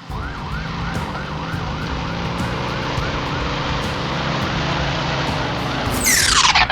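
Emergency vehicle siren sounding a fast rise-and-fall yelp, about three cycles a second, over a steady low drone. Near the end a quick falling whoosh cuts across it.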